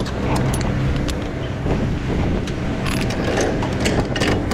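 Wind buffeting the microphone over a low steady hum, with scattered clicks and knocks as the truck trailer's rear doors are closed and latched.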